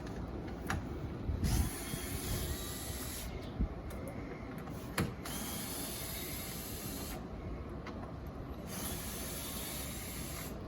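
Cordless power tool spinning out 7mm bolts from the underside of a rear bumper, in three runs of about two seconds each, with a few light clicks between them.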